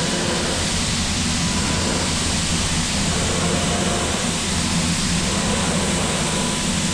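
Heller CP 6000 five-axis machining center finish-milling a pump housing with a small tapered end mill: a steady, even hiss of the spindle and cut with a faint whine in it.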